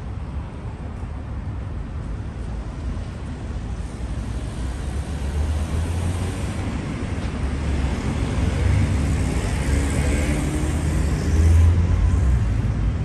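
City street traffic: a steady rumble of road vehicles, with a vehicle passing close and swelling louder from about eight seconds in, loudest near the end.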